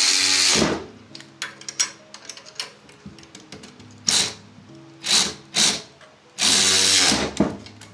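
Cordless power ratchet running in short bursts as it snugs down exhaust bracket bolts: about five runs, the longest near the end lasting under a second, with small clicks of handling in between.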